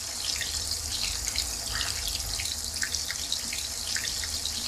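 Mutton kofta balls deep-frying in medium-hot oil in a wok: a steady sizzle full of small crackles and pops.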